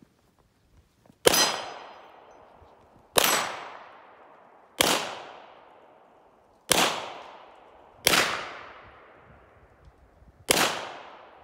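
Six 9mm pistol shots from a Glock 34, fired one at a time at a slow, aimed pace one and a half to two and a half seconds apart, each crack trailing off over about a second.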